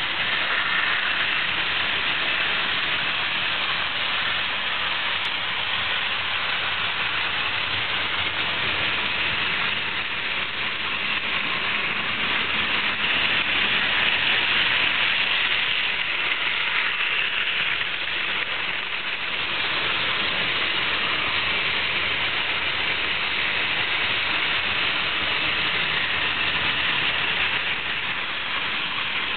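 Model trains running on the layout: a steady rushing rattle of electric motors and metal wheels on track, with no breaks.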